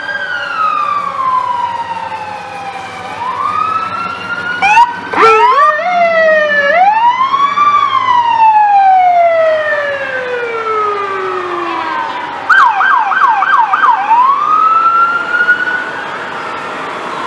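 Police car and fire engine sirens sounding together: slow wails rising and falling in pitch, one long wail sliding steadily down over about five seconds. A couple of sharp loud bursts come about five seconds in, and a quick run of about five short yelps comes about two-thirds of the way through.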